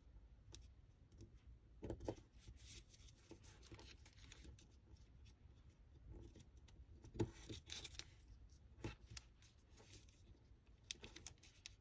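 Faint rustling and crinkling of a small sheet of origami paper being folded and creased by fingers, with a handful of brief crisp scrapes scattered through.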